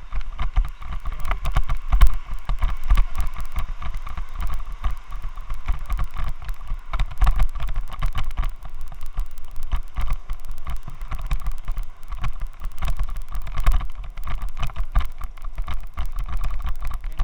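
Helmet-mounted action camera's loose mount rattling against the camera, a dense irregular clatter of clicks over a low rumble: vibration from a faulty helmet mount.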